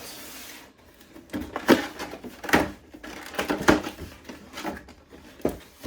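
Cardboard toy packaging being handled and opened: a dozen or so sharp, irregular scrapes and taps as the box flaps and insert are worked.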